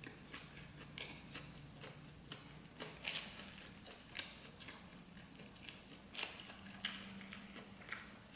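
A person chewing a mouthful of burger: faint wet mouth clicks and smacks, with a few louder ones around three, six and seven seconds in.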